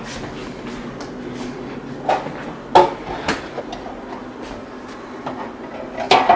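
A few sharp knocks and clatters of kitchen things being handled. Near the end, the deep fryer's wire basket is lifted with a metal rattle.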